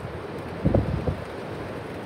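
Wind buffeting the microphone over a steady hiss of wind and surf, with one strong low gust about two-thirds of a second in that lasts about half a second.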